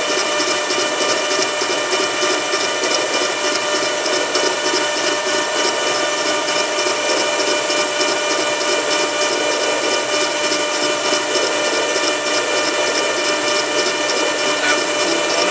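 Grizzly lathe running with a 3/4-10 tap spinning in the chuck, hobbing the teeth of a worm wheel that the tap drives round on its own spindle: a steady whine with several held tones. This is a slightly deeper cutting pass, one full turn of the wheel.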